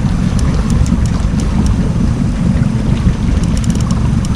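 Steady low rumble of a fishing boat's motor running while trolling, mixed with wind buffeting the microphone, with scattered faint ticks.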